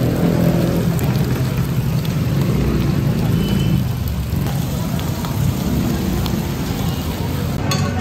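Pork sisig with raw eggs sizzling on a hot sizzling plate over a gas burner: a steady, rain-like crackling hiss. A few sharp clicks sound just before the end.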